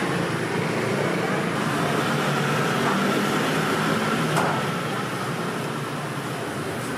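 Steady street-side background noise, a hum of traffic and machinery around a street food stall, with a single sharp click about four and a half seconds in.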